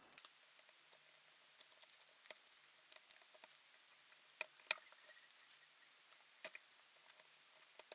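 Faint, scattered small clicks and crackles of plastic film being peeled and 18650 lithium cells being pried and handled in an opened laptop battery pack. The sharpest click comes a little under five seconds in.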